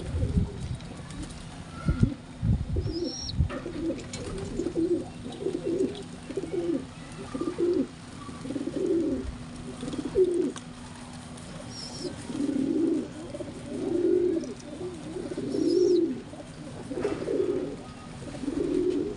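Domestic pigeons cooing over and over, one low call after another about every second. There are a few dull thumps in the first few seconds.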